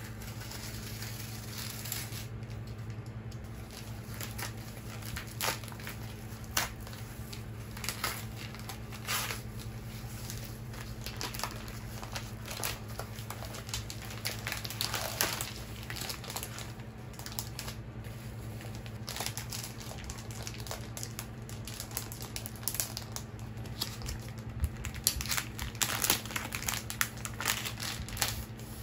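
Padded mailer and plastic packaging crinkling and rustling as they are handled and opened, in irregular bursts that grow denser and louder near the end, over a steady low hum.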